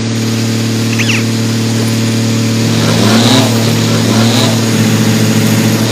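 A vehicle engine running steadily, revving up briefly twice about three and four seconds in.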